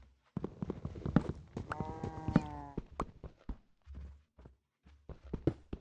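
Farm animal calling once, a pitched call of about a second roughly two seconds in, among many sharp knocks and clattering steps.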